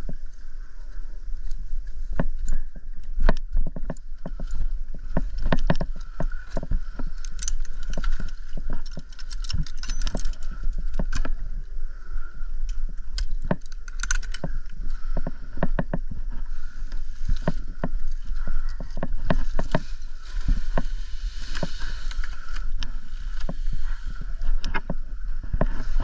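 Irregular knocks, scrapes and jangling of tree-climbing gear on a Mexican fan palm trunk: climbing rope, harness hardware and the dry leaf bases of the trunk knocking together as the climber shifts position, over a steady background hum.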